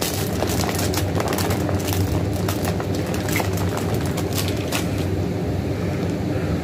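Clear plastic mailer bag crinkling and rustling as it is handled, over a steady low hum; the crinkling dies down about five seconds in.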